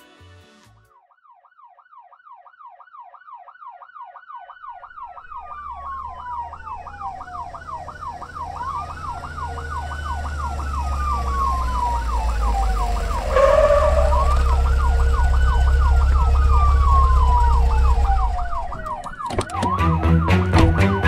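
Emergency vehicle sirens fading in and growing steadily louder: a fast yelp rising and falling several times a second together with a slower wail sweeping up and down every few seconds, over a deep rumble. A sudden hit cuts in about two-thirds through, and a rhythmic music track takes over near the end.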